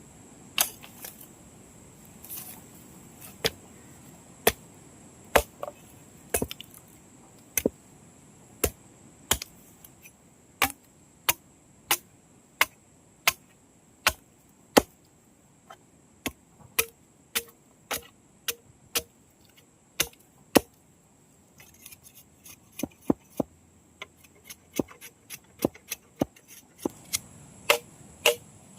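Repeated sharp chopping strikes of a blade or hand tool, about one and a half per second, keeping up a steady working rhythm; a few strikes have a short ring.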